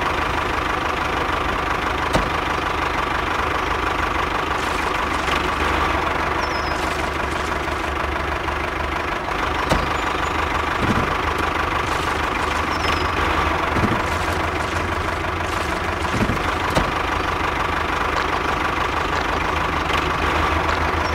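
Steady engine running sound of the miniature tractor as it moves through the mud, unbroken, with a few faint clicks.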